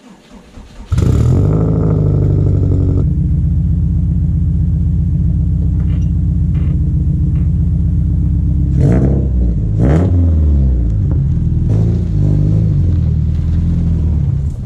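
A motor starts about a second in and runs steadily and loudly, then cuts off at the end.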